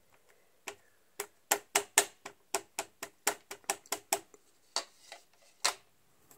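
A quick run of light taps, about twenty of them, densest in the middle and thinning out towards the end: an ink pad being dabbed onto a rubber stamp to re-ink it for another pass.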